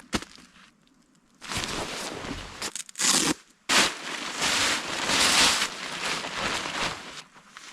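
Tent fabric rustling and crinkling as a new tent is unpacked and handled, in several long noisy stretches with short breaks.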